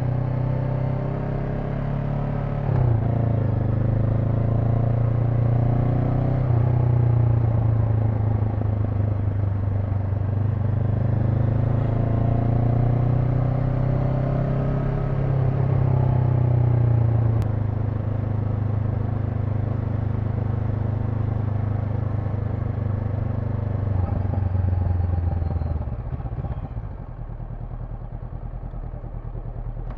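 Honda NX500's parallel-twin engine running under way, its pitch rising and stepping several times as the throttle is worked and gears change. The level drops about halfway through as the throttle is eased, and near the end the engine falls to a quieter, lower note.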